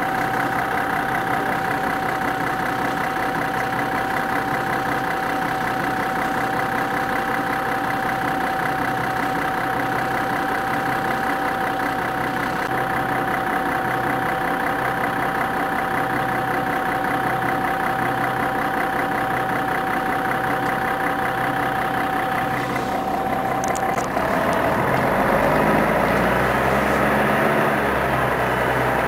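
Scania CN113CLL city bus's diesel engine idling, with a steady high whine over the even engine beat. About 23 seconds in there is a brief clatter, then the engine note grows louder and rises as it takes load.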